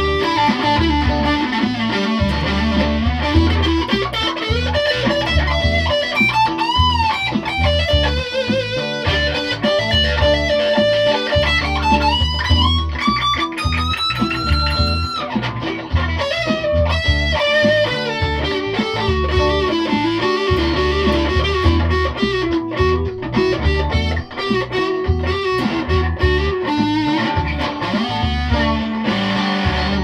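Amplified electric guitar playing a lead line, with wavering vibrato on held notes and a long rising pitch climb about twelve to fifteen seconds in, over a steady low pulsing rhythm.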